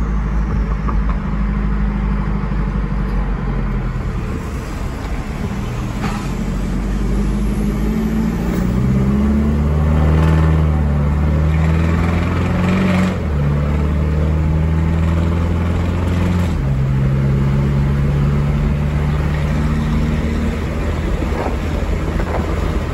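2.8 L Duramax LWN four-cylinder turbodiesel with a DT44 turbo, heard from inside the cab, pulling hard at about half throttle as the truck speeds up onto a highway. The engine note rises and then steps down at upshifts, twice in the second half, over steady road noise.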